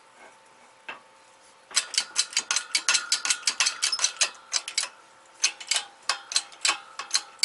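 Hand-pumped hydraulic shop press pressing a wheel-bearing race into a brake rotor through a socket, giving quick sharp metallic clicks about four or five a second. The clicks come in two runs with a short break between, after a quiet first second or two.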